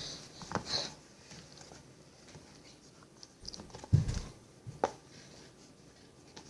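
Hands kneading and squishing sticky homemade flour-and-oil play dough, with soft, scattered handling noises and a dull thump about four seconds in.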